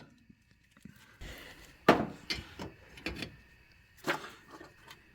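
Plastic wiring-harness clips being popped out of a car's body: several sharp snaps and knocks, the loudest about two seconds in.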